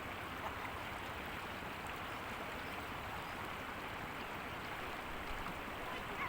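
River water running in a steady, even rush.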